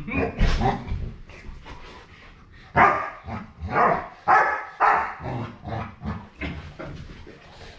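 Large dog barking in play while wrestling: a couple of barks right at the start, then a run of barks from about three seconds in.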